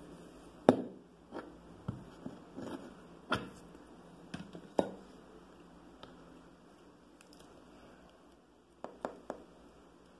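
Rolling pin pressed and rolled over biscuit clay on a plastic mini-rose cutter, giving a string of soft knocks and clicks over the first five seconds. Quieter handling follows as the clay is peeled from the cutter, then three quick clicks near the end as the plastic cutter is picked up.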